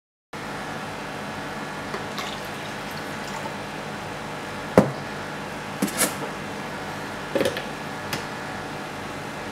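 A few light knocks and clicks from a plastic countertop blender jar and lid being handled, over a steady background hiss. The sharpest knock comes about halfway through, then a pair and two more single clicks.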